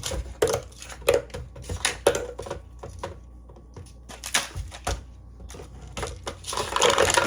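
Ice cubes dropped one after another into a blender jar, clattering in irregular sharp knocks, with a denser rattle near the end.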